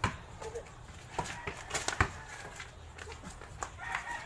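A basketball bouncing on a concrete court: a handful of sharp thuds at uneven intervals, the loudest about two seconds in.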